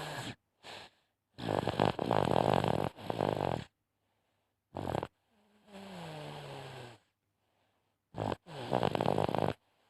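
A sleeping baby snoring in a run of breaths with short pauses between them. The snores are rattly and rough, and one breath in the middle carries a smoother tone that falls in pitch.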